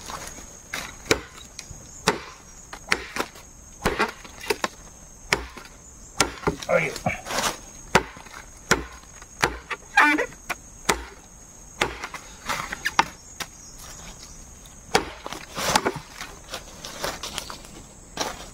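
Parang (machete) chopping into old, thick bamboo: a long run of sharp, irregular cutting strikes, roughly one or two a second, with the wood splitting and splintering.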